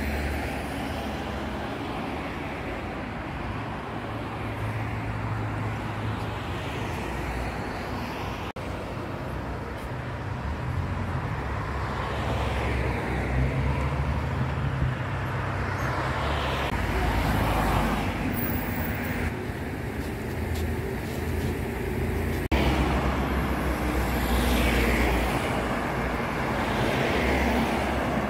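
Road traffic: a steady stream of cars passing on a street, a low rumble of engines and tyre noise that swells and fades several times as vehicles go by.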